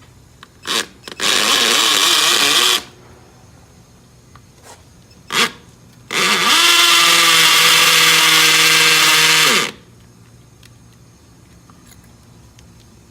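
Electric drill with a starter bit boring into a stucco wall. A couple of quick trigger taps lead into a short run, then after a pause comes a longer run of about three and a half seconds. In that longer run the motor whine climbs at the start, holds steady and winds down at the end.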